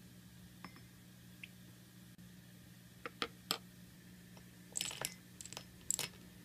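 Tiny clam shells clicking and clinking against a small ceramic dish and a miniature iron pot as they are tipped in: three sharp ticks about three seconds in, then quick clusters of clinks near five and six seconds. A faint steady hum sits underneath.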